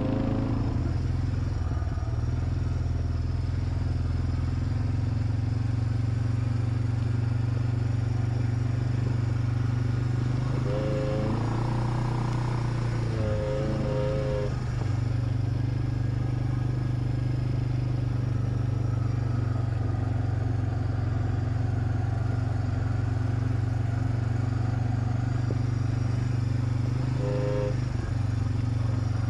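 Suzuki 400 ATV engine running at a steady speed. A few short higher tones break in briefly near the middle and again near the end.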